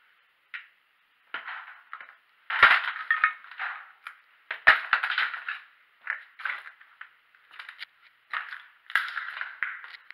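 Footsteps crunching and shifting over rubble of broken bricks and roof tiles, in irregular bursts with a few sharper knocks.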